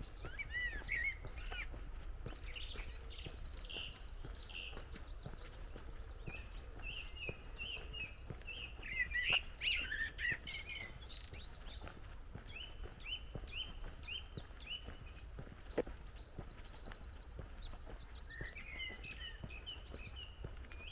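Several songbirds chirping and singing, in many short calls and quick trills, with a steady low rumble underneath.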